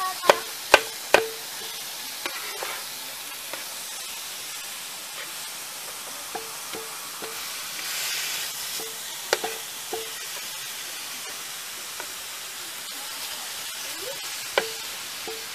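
Raw seasoned chicken pieces sizzling on an electric griddle, with sharp knocks of a metal spatula striking the griddle plate as the meat is chopped and spread. Three loud knocks come in quick succession at the start, and a few more come later.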